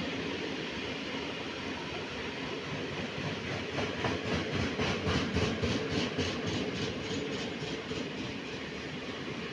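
Freight train of open-top wagons passing close by with a continuous rolling rumble. In the middle of the pass the wheels click regularly over rail joints, about three clicks a second, and this is the loudest part.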